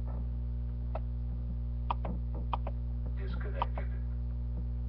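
Steady electrical mains hum, with a handful of sharp, scattered clicks from a computer keyboard.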